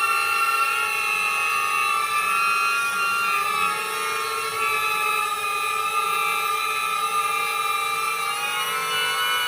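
DJI Neo mini drone hovering, its motors and propellers giving a high whine made of several tones whose pitch wavers slowly up and down as the motors adjust speed.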